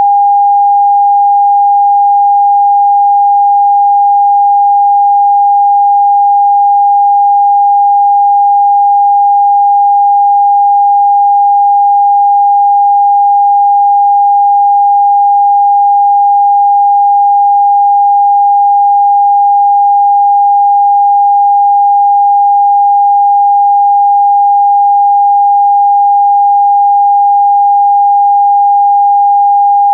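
Test tone of the NRK PM5544 test card transmission: a single steady pure tone, loud and unchanging.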